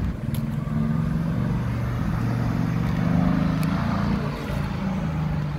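Sports car's exhaust at low revs, running steadily as the car drives slowly past, with a low-pitched note that rises and falls slightly.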